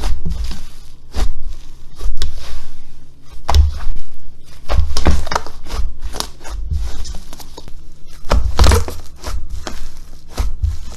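Slime being squished and pressed by hand, making irregular sticky pops and crackles over dull low thuds.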